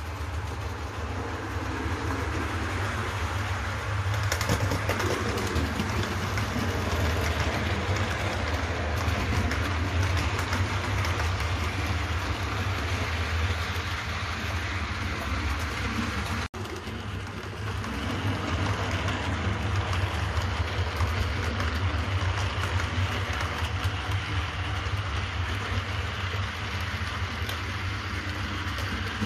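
Model railway train running on the layout: a steady hum and rumble of its wheels on the track, growing louder about four seconds in.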